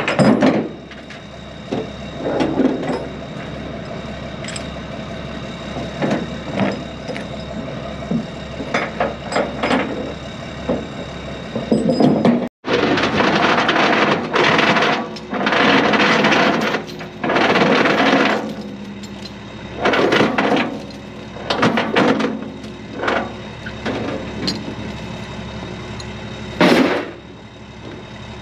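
Steel tie-down chains and load binders clanking and clattering as they are handled and set down on a metal flatbed trailer deck, in repeated short clanks, busiest in the second half, over a steady low hum.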